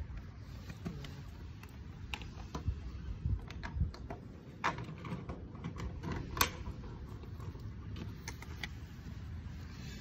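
Scattered light clicks and taps over a steady low rumble.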